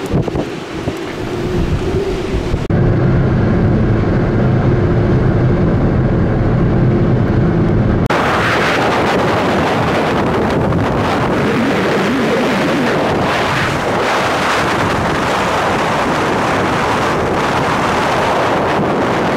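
Strong thunderstorm wind blowing hard across the microphone in gusts. For a few seconds early on it gives way to a steady low vehicle-like rumble with the high end muffled.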